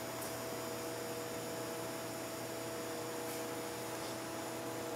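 Hydraulic puller running with a steady hum of a few held tones over a light hiss, as it pulls a cured fishing-rod blank off its mandrel.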